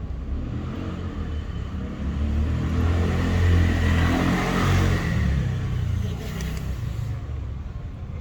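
A road vehicle driving past: a low rumble that swells to a peak about four seconds in, then fades.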